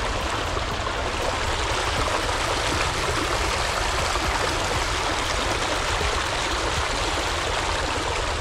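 Shallow, rocky creek flowing steadily, water rushing over stones and a small riffle.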